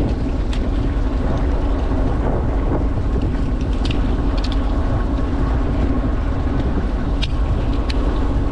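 Fishing boat's engine idling with a steady low hum, with a few short clicks and crinkles from a plastic-packed fishing rig being handled.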